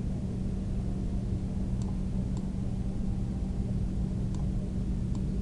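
Steady low electrical hum and hiss of the recording setup, with four faint computer-mouse clicks.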